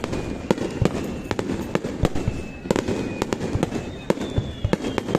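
Aerial firework shells bursting in rapid succession during a fireworks finale, a dense run of sharp bangs several a second over a continuous rumble, with faint thin whistles now and then.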